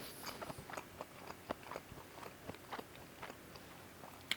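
Faint, close-miked chewing of a chili dog with onions: soft, irregular wet mouth clicks several times a second, with a sharper click near the end.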